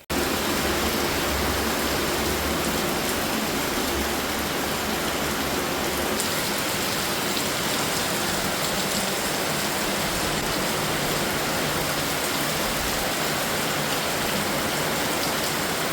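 Steady heavy rain, a dense even hiss of falling water that starts abruptly.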